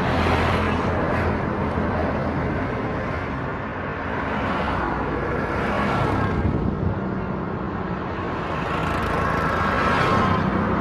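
Street traffic: vehicles passing with engine and road noise that swells and eases a few times.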